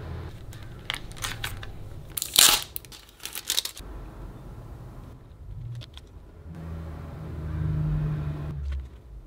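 Photocards and their packaging being handled: scattered clicks and rustles, with a loud crinkle about two and a half seconds in. A low rumble swells in the second half and stops suddenly near the end.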